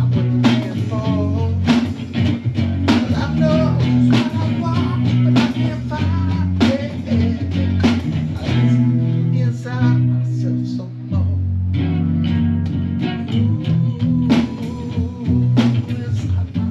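Six-string cigar box guitar playing a blues groove, accompanied by a hand drum.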